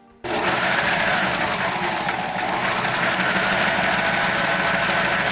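Sewing machine running steadily at speed, its hook assembly turning under the needle plate; the sound starts suddenly just after the beginning.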